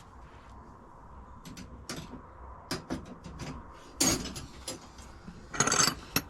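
Steel open-end wrenches being handled, knocking and clinking against each other and the surface: a few light clicks, then a louder clank about four seconds in and a clatter near the end.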